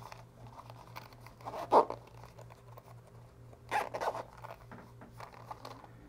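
Zipper on a small hard-shell mic carrying case being run, in two short strokes, about 1.7 s in and around 4 s, with light handling of the case. A faint steady low hum sits underneath.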